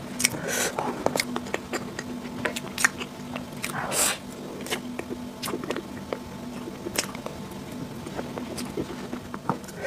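Close-up eating sounds: a metal spoon scooping and clicking in a jar of soft cream dessert, with wet mouth smacks and lip sounds as the cream is eaten. A low steady hum runs underneath.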